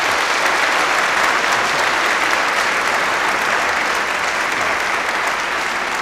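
Audience applauding, easing slightly near the end.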